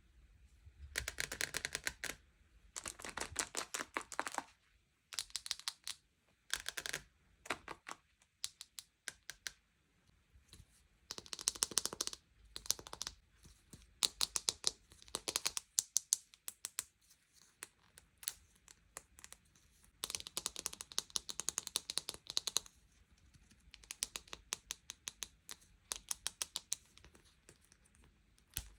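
Sweet and toy packaging being handled and opened: bursts of rapid crackling and clicking, each lasting a second or two, with short pauses between.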